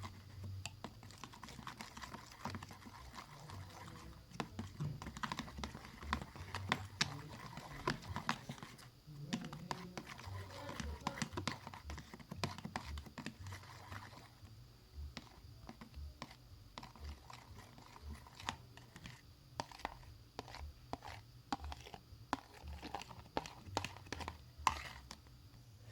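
Faint, irregular clicking and tapping of a utensil stirring glue and dye together in a container, knocking and scraping against its sides.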